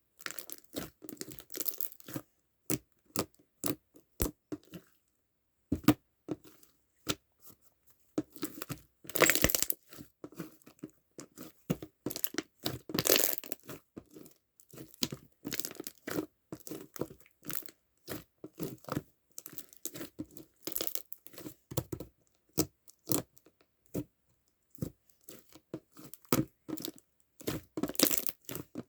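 Hands squishing, pressing and stretching a strawberry milk slime, giving irregular sticky pops, clicks and crackles, with a few louder squelches.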